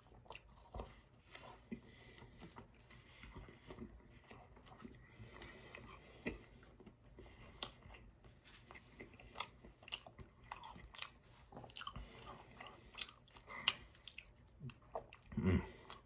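Close mouth sounds of a man biting and chewing a soft biscuit-wrapped sausage, egg and cheese roll-up: faint, irregular wet chews with small clicks and smacks. A brief louder mouth or throat sound comes near the end.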